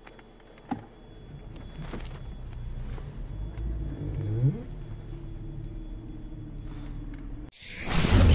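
A car engine runs low and steady, heard from inside the cabin. A few light clicks sound, and the engine note rises briefly a few seconds in. Near the end the sound cuts and a loud outro sound effect starts abruptly.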